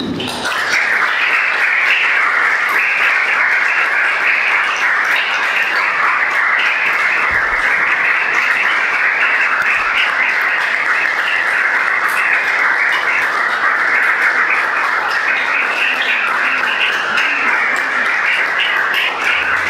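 Audience applauding: dense, steady clapping that starts abruptly and holds at an even level.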